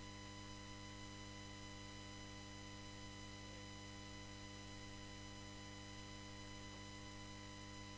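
Steady electrical mains hum and buzz with faint hiss from the meeting room's microphone and audio chain; no speech.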